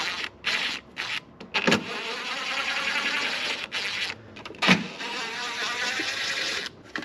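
Cordless power tool whirring in several short and longer bursts as it runs bolts out of an engine bay's intake parts, with two sharp knocks between the bursts.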